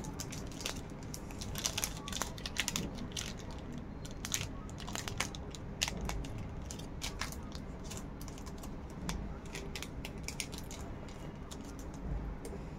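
Irregular small clicks, taps and rustles from small items being handled close to the microphone, a quick run of sharp ticks and scrapes with short gaps between them.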